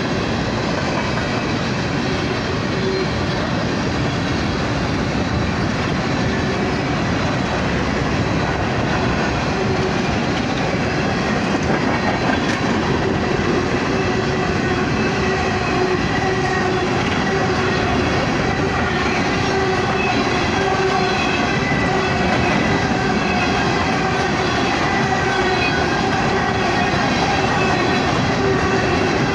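Empty coal train rolling steadily past, with the rumble and clatter of freight car wheels on the rails. A steady ringing squeal from the wheels rides over it, growing clearer a few seconds in.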